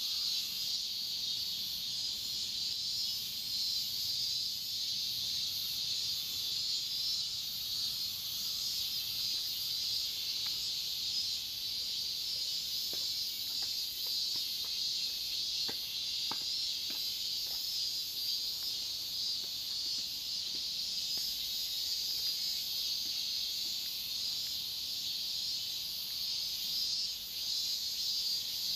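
Steady, high-pitched chorus of insects trilling without a break, with a few faint clicks about halfway through.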